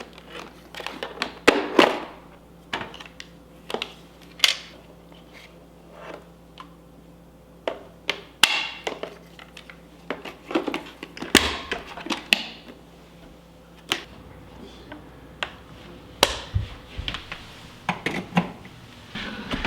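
Irregular knocks, taps and clatter of hard objects being handled, with brief rustling between them.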